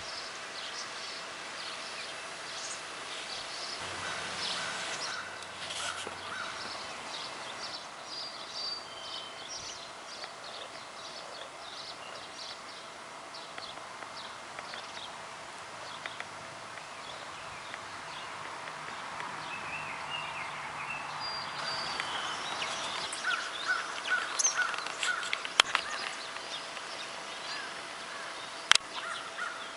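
Outdoor ambience with many wild birds calling and chirping, with runs of quick repeated calls near the end. A faint steady hum runs underneath.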